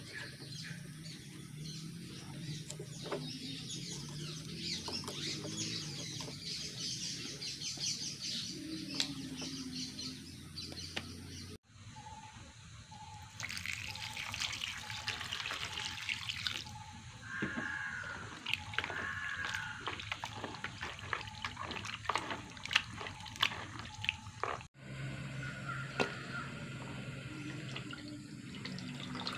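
Raw chicken pieces handled and cut with a knife in a plastic bowl, with scattered clicks and knocks. About halfway through, a stream of water pours onto the chicken for about three seconds, followed by splashing and knocking as the pieces are rinsed by hand.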